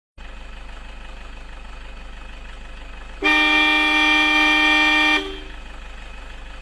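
A vehicle horn sounded in one steady blast of about two seconds, starting about three seconds in and cutting off sharply, over a low steady hum.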